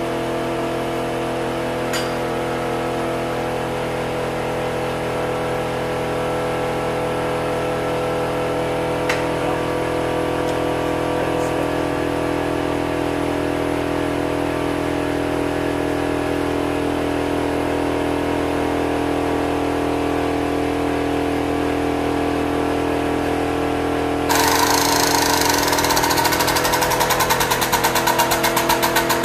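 Hydraulic pump unit running steadily with an even motor hum. About five seconds before the end it turns louder and harsher with a fast, even pulsing as it works the ram that flares the exhaust tubing.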